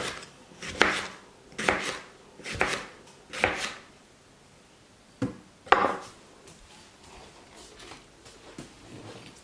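Knife cutting cucumber on a cutting board: about five evenly spaced chops over the first four seconds, then two more a little after five seconds in.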